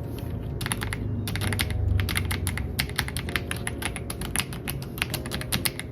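Typing test on an Ajazz AK820 Pro mechanical keyboard with its stock switches and keycaps: a fast, continuous run of key presses, starting about half a second in.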